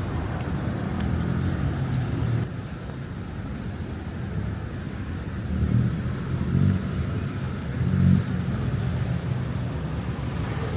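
Motor vehicle engine rumble, swelling louder a few times as vehicles pass or accelerate.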